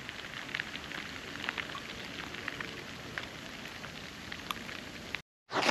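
Snow coming down: a steady, even hiss sprinkled with scattered light ticks, much like light rain. It cuts out abruptly near the end.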